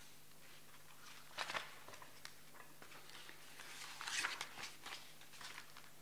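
Short rustles and clicks of handling at a lectern microphone over a faint steady hum: one brief burst about a second and a half in, and a cluster of small rustles around four seconds.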